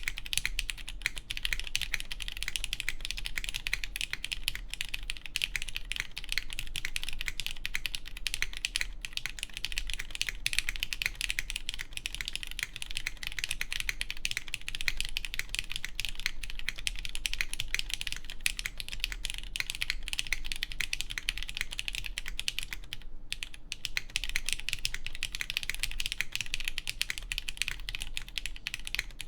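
Continuous fast typing on a Keycult Zero mechanical keyboard with lubed Cherry MX Black Clear Top (Nixie) linear switches, a plateless PCB mount and GMK keycaps: a dense stream of key clacks, with a brief pause about three-quarters of the way through.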